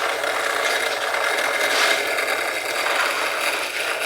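A small handheld electric tool running steadily with an even whirring hiss, used to plastic-weld a broken tip on a car window regulator part.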